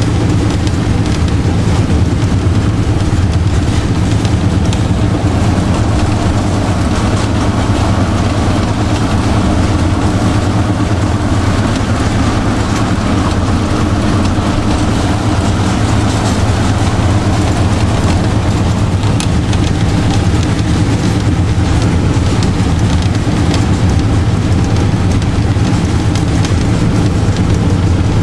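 TU7 narrow-gauge diesel locomotive's V12 diesel engine running steadily under way, heard from inside the cab.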